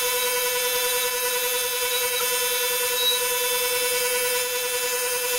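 Electric wood lathe running steadily with nothing cutting: an even motor hum with one constant tone.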